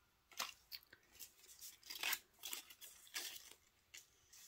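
Paper crinkling and rustling in a string of short, irregular scrapes as hands handle a roll of washi tape and its paper band.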